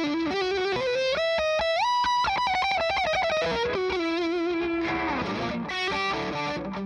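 Schecter electric guitar with distortion playing a lead line: single notes climb in quick steps, then a long note is held with vibrato and bent down near the end.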